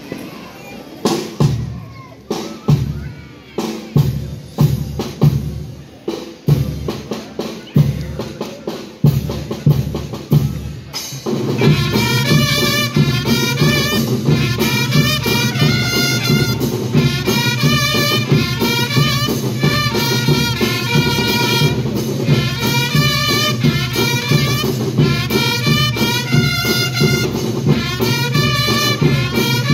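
School marching band (banda rítmica) playing: drums alone for about the first eleven seconds, then brass joins in a full march over a steady drum beat.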